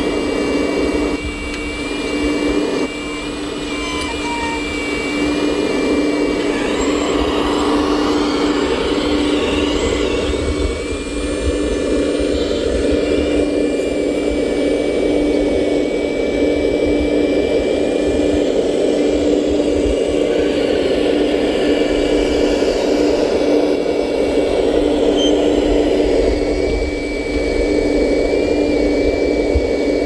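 Hydraulic pump of a radio-controlled model Liebherr 970 SME excavator, running with a steady whir while the machine digs and loads. A thin high whine above it steps up and down in pitch a few times as the work changes.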